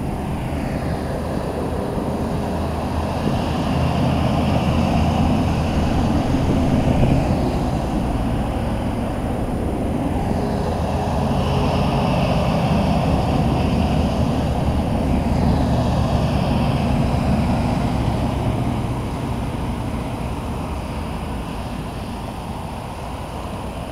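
Military convoy vehicles passing one after another on a road: steady engine and road noise that swells as each heavy truck goes by, loudest a few seconds in and again about halfway, then eases off near the end.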